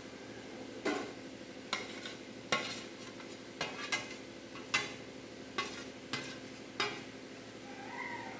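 Steel ladle clinking and scraping against a bowl and a metal kadhai as masala is scraped in and boiling fish curry is stirred: about nine sharp clinks, spaced under a second apart, over a steady hum and soft bubbling.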